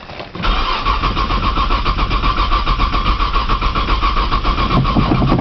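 A 1995 Nissan Maxima's starter motor cranking the cold 3.0 V6 in a fast, even rhythm. It starts about half a second in and the engine does not fire: a cold no-start that the owner suspects is a bad sensor.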